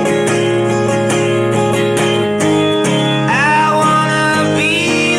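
Background folk music: fast-strummed acoustic guitar playing between sung lines.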